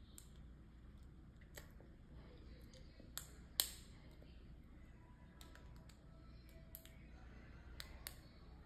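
Plastic Lego pieces clicking and tapping as they are handled and pressed together: a few scattered sharp clicks, the loudest two about three and a half seconds in.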